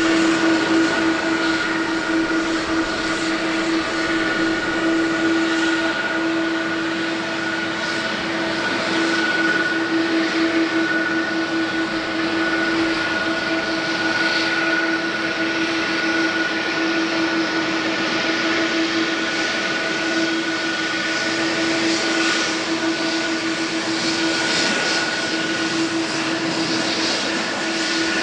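Boeing 737-700 jet airliner's CFM56-7B engines running steadily: a constant whine over a broad rush of engine noise.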